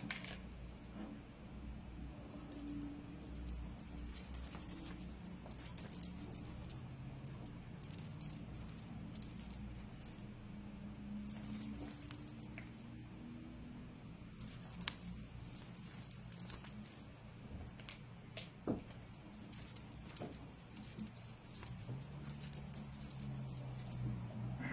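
A kitten's toy rattling and jingling in repeated bursts of a second or more as the kitten bats and paws at it, with a few single clicks in between.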